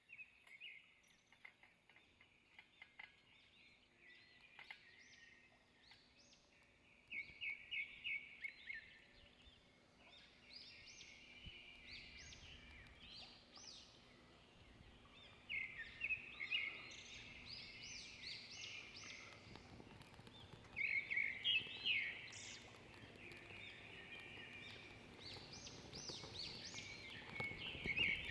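Birds singing in bursts of rapid, repeated high chirps, several phrases a few seconds apart, with a few faint clicks in the first seconds.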